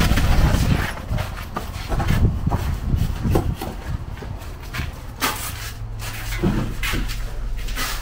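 Chunks of broken concrete rubble tipped from a plastic bucket clatter onto a pile at the very start. Scattered knocks and steps follow as the empty bucket is carried away.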